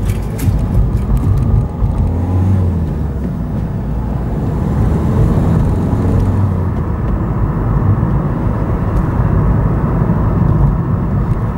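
Car driving across a level crossing and on along the road: steady low engine and tyre rumble, with a few sharp clicks right at the start as the wheels cross the rails.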